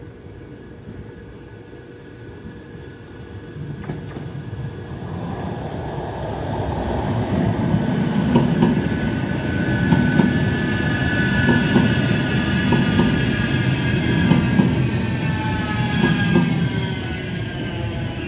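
Metrolink M5000 light-rail trams passing close by: a rumble of steel wheels on rail with clicks at the joints, building over the first several seconds and loudest in the middle. A high whine runs over it and glides down in pitch near the end.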